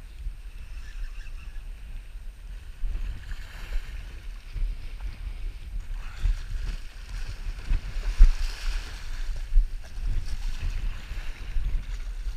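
Strong gusty wind buffeting the camera microphone in a low rumble, over the hiss of surf washing up the beach.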